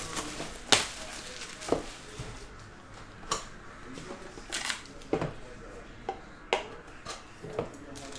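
A football trading-card box being unwrapped and opened by hand: a scattering of sharp clicks and taps from the cardboard box and lid, with soft crinkling of shrink wrap and a foil pack between them.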